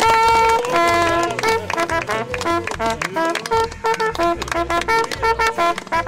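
Brass hunting horns playing a fanfare: a quick run of short notes, with a couple of longer held notes near the start.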